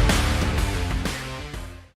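Rock-style background music with a steady beat, fading out at the end.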